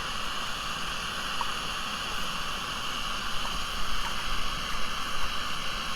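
Steady hiss of a camping stove burner, with a pancake cooking in the pan on it.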